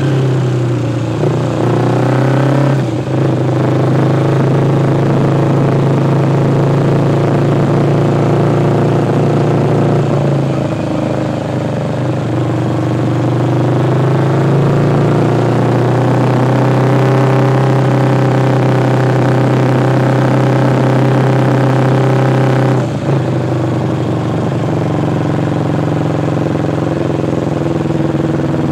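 2006 Kawasaki Ninja 250's parallel-twin engine with an aftermarket Muzzy exhaust and pod air filters, running under way, heard from inside the tank bag. The revs climb over the first few seconds, ease off and build again a little before halfway, then hold steady, with a short sharp break about two-thirds of the way through before the engine settles.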